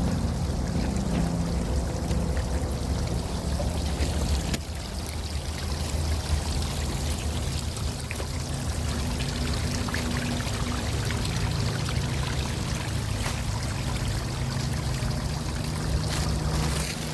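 Running water, a steady pouring flow like a stream or small fall, with a low hum underneath; it drops a little in level about four and a half seconds in.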